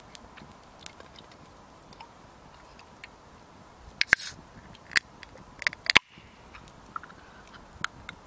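Wood campfire crackling, with sharp irregular pops that are loudest and come thickest between about four and six seconds in.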